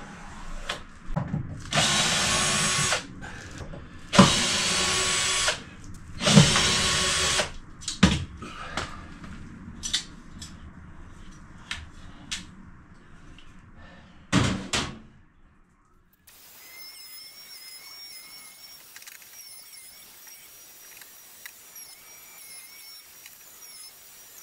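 Cordless drill-driver running in three bursts of about a second and a half each, with small knocks in between and a shorter burst about halfway through. After that only a quiet background with a faint, repeating high chirp.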